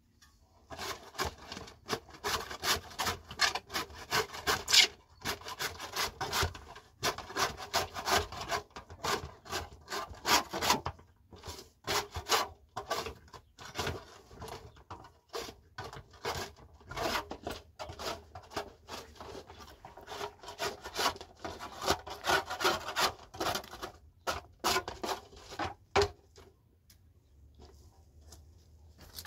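Wood being worked with repeated rasping strokes, in runs broken by short pauses, stopping near the end.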